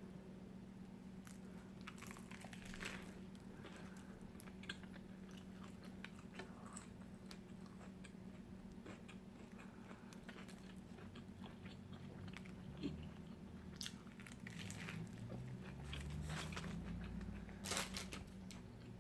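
Close-up eating sounds: a person biting and chewing food, with soft crunches and wet mouth clicks scattered throughout, over a faint steady low hum.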